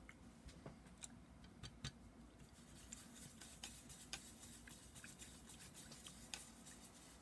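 Faint, irregular light clicks and taps from a paintbrush working thick oil paint on a canvas, a dozen or so scattered over a few seconds.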